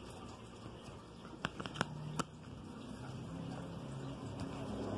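Plastic back cover of a Rokit One feature phone being pressed on and snapping into place: a quick run of about five sharp clicks.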